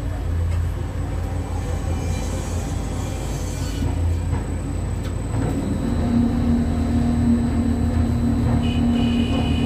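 Tower crane machinery running, heard from inside the operator's cab: a steady low rumble, joined about halfway through by a steady motor hum.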